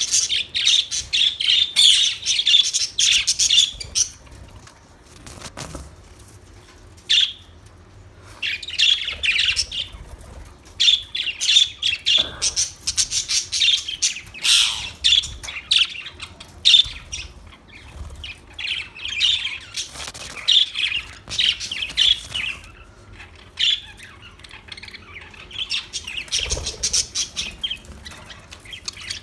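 Budgerigars chirping and chattering in bursts of rapid, high twittering a few seconds long, with short quiet gaps between them.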